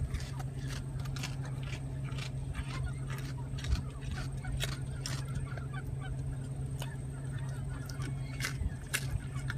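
Alpaca chewing leafy greens: irregular crisp crunching clicks, several a second, over a steady low hum.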